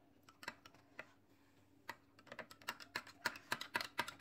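A metal spoon stirring milkshake in a glass tumbler and clinking against the glass. A few scattered clinks come first, then quicker taps, several a second, from about two seconds in.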